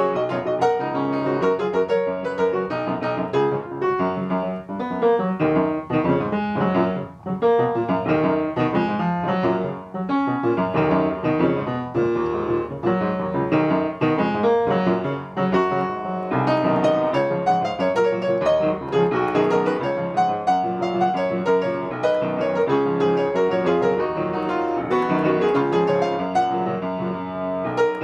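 Piano music: a steady stream of played notes and chords.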